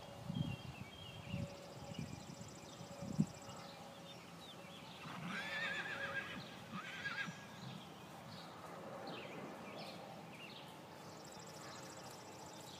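A horse whinnying in a wavering call, in two parts around the middle. Earlier there are a few low, irregular thuds.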